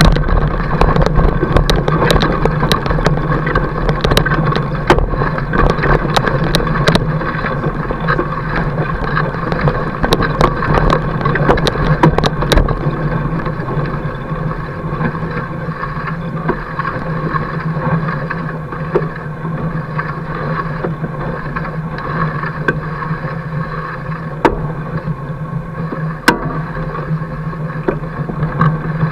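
Fat bike's wide tyre rolling over packed snow, picked up by a camera mounted beside the wheel: a steady humming drone. Frequent sharp clicks and crunches through the first half, thinning to a few later.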